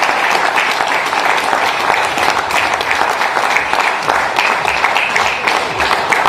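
Church congregation applauding: a loud, steady clatter of many hands clapping.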